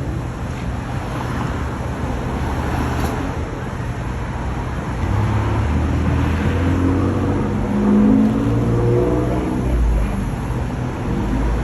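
Street traffic: cars passing, with a car engine running close by whose pitch shifts from about five seconds in.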